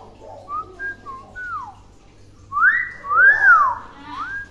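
Hill myna whistling a series of clear sliding notes: a few short rising and falling ones, then louder arching whistles from about halfway through.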